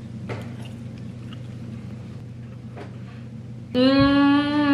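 A woman chewing a mouthful of food, then near the end a loud, long closed-mouth "mmm" of enjoyment held on one pitch. A steady low hum and a few faint clicks sit underneath.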